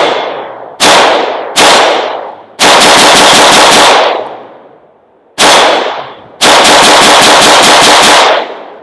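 Aero Precision M4E1 AR-15 rifle with a .223 Wylde barrel and a compensator firing: two single shots about a second apart, then a rapid string of about eight shots in just over a second. After a pause comes another single shot, then a longer rapid string of about a dozen shots that stops shortly before the end.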